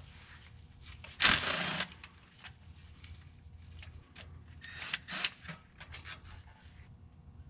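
Power ratchet spinning out one of the transmission valve body bolts in a short burst a little over a second in, followed by light metallic clicks and rattles of the socket and tools about five seconds in.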